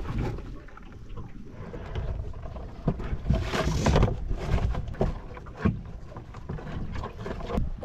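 Irregular knocks and scrapes of a plastic tub holding a mud crab being handled and tipped on a carpeted boat deck, with a longer scraping rush about halfway through.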